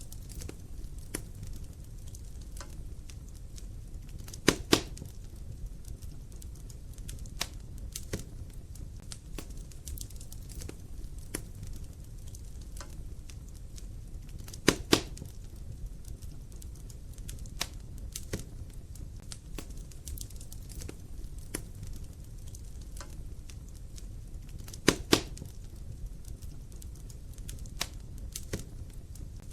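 Wood fire burning in a fireplace: a low steady rumble of the flames with constant small crackles, and three louder double pops about ten seconds apart.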